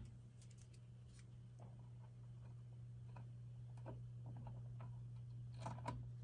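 Faint steady low electrical hum with a few light ticks of handling, and two small clicks close together near the end, as the power to a small 12 volt UPS is being disconnected.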